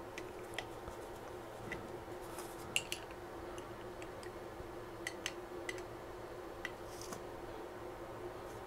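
Scattered light metal clicks and taps of a small screwdriver and open-end wrench on the screw and nut that set the timing-belt tension on a laser rotary roller, over a faint steady hum.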